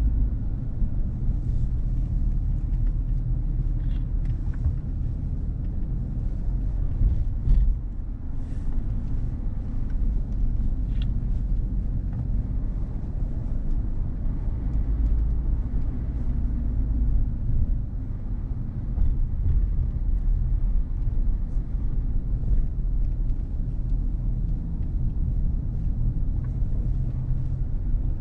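Steady low rumble of a car driving, engine and road noise, with a few light ticks scattered through the first half.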